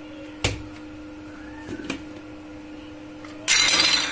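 A plastic mixer-grinder jar being handled over a faint steady hum. A sharp click comes about half a second in as the lid is unclipped, then a couple of faint knocks, then a loud, short clatter of hard pieces near the end.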